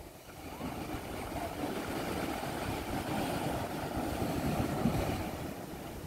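Wind buffeting the microphone in a steady low rumble, with the wash of small surf on a sandy beach beneath it.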